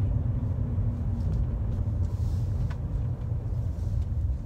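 A 2000 BMW E39 M5's V8 engine and road noise heard from inside the cabin while driving: a steady low rumble.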